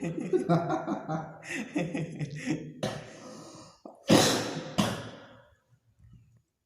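A man's breathless, wheezing laughter that breaks into a fit of harsh coughs, the loudest about four seconds in, then fades to faint breaths. The laughing sets off the coughing.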